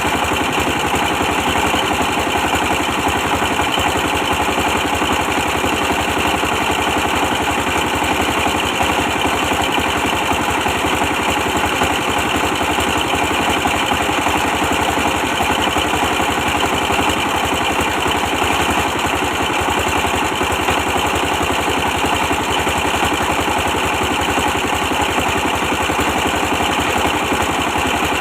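A 24 hp diesel engine running steadily at a constant speed, its rapid firing pulses even throughout.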